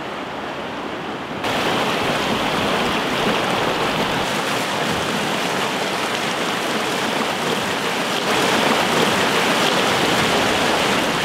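River rapids rushing, a steady whitewater noise of fast water breaking over rocks. It suddenly gets louder about a second and a half in, and a little louder again near the end.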